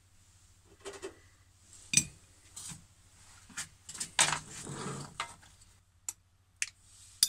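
Kitchen clatter: knocks and scrapes as a deep-fried croquette is taken from a wire fryer basket and set on a china plate, the loudest knock about two seconds in. Near the end, a few short sharp clinks of a metal spoon against a glass mustard jar.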